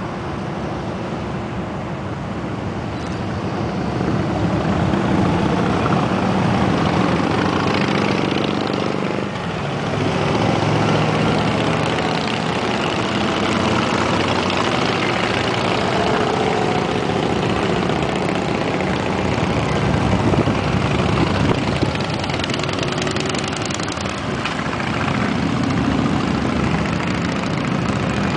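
A long column of motorcycles riding past, many engines droning together, the sound swelling and easing as groups of bikes go by.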